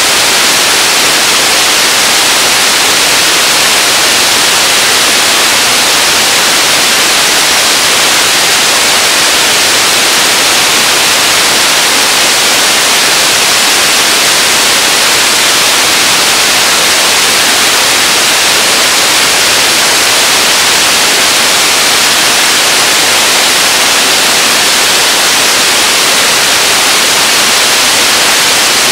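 Whatcom Falls pouring over its rock ledge: a loud, steady rush of falling water that never changes.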